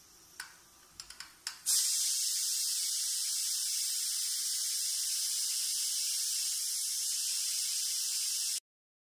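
Pressure cooker whistle blowing: the weight on the vent clicks a few times, then lifts and a steady jet of steam hisses loudly for about seven seconds before cutting off suddenly. It is the cooker's first whistle, the sign that it has reached full pressure and the rice is cooked.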